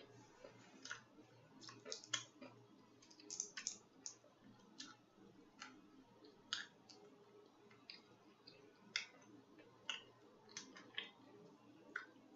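Faint, irregular wet mouth clicks of chewing and lip smacking while eating seafood, about two a second.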